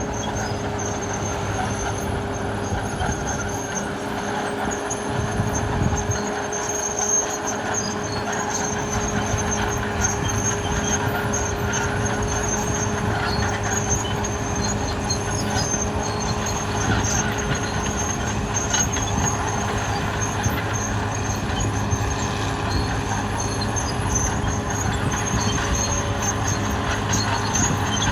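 Caterpillar D6R XL crawler bulldozer working, its diesel engine running steadily with the metallic rumble and squeal of its steel tracks.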